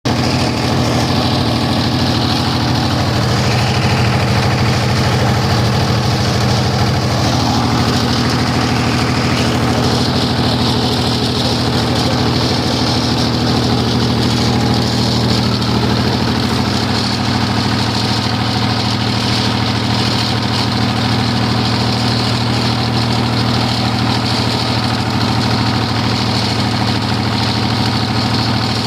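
Mahindra diesel generator engine running steadily, with a slight change in its tone about seven seconds in.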